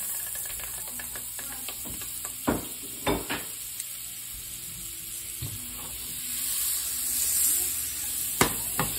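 Butter and vegetable oil sizzling in a hot frying pan as the butter melts, a steady hiss that swells a little after about six seconds. A few sharp knocks cut in, around two and a half and three seconds in and again near the end.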